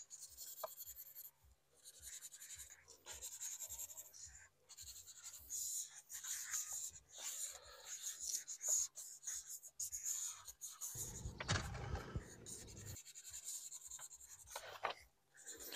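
Felt-tip markers drawing on paper in short, faint scratchy strokes with brief pauses. About eleven seconds in there is a lower rustle lasting about two seconds.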